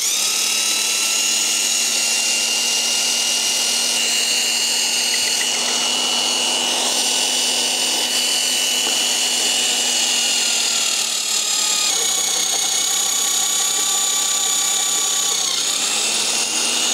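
Magnetic drill starting up and running steadily as its twist bit cuts into a steel plate, throwing off metal swarf. Its whine drops slightly in pitch about twelve seconds in and comes back up near the end.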